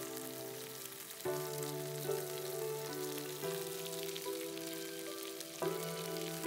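Bone-in meat chops sizzling as they fry in a stainless steel pan, a steady crackling hiss, over background music with held chords.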